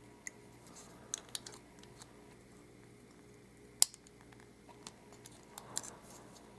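Faint scattered clicks and taps of small metal lock parts and tools being handled while an Abus Titalium euro cylinder is taken apart, with one sharp click a little before the middle.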